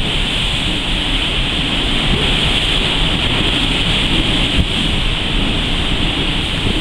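Steady wind blowing across the microphone with a low, churning rumble, over the rush of open sea.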